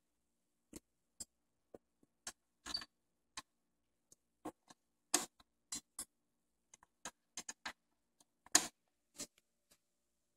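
Faint, irregular clicks and ticks from a Nakamichi MR-1 cassette deck running in play, spaced unevenly a few times a second with no steady tone.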